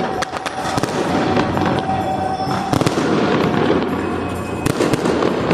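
Fireworks going off: dense crackling and pops with sharper bangs, the biggest about two and a half and four and a half seconds in, over background music.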